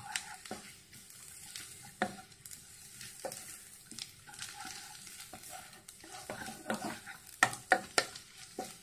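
Wooden spatula stirring and scraping frying onions and ground spices around a ceramic-coated pan, over a light sizzle. Scattered clicks of the spatula on the pan, with several sharper knocks near the end.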